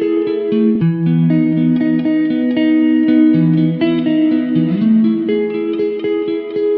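Background music played on plucked strings, like a guitar, with notes changing several times a second.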